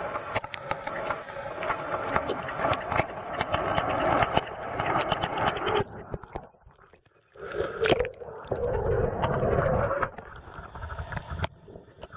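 Muffled underwater noise picked up by a camera in a waterproof housing: a steady hum with many small clicks and knocks. The sound drops out about six seconds in as the camera is hauled up and out of the water, then returns with a sharp knock and a rough noisy stretch as it comes up into the air.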